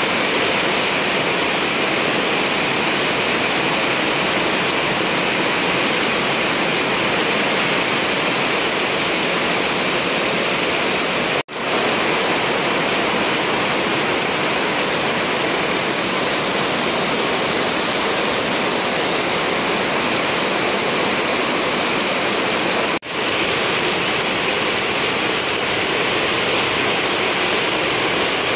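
Steady heavy rain falling on wet paved ground, a dense, even hiss. It cuts out for a split second twice, about a third of the way in and again near the end.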